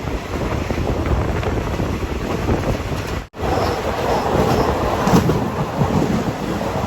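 Train running on the track, a steady rumble with wind noise on the microphone; the sound cuts out for a moment a little over three seconds in.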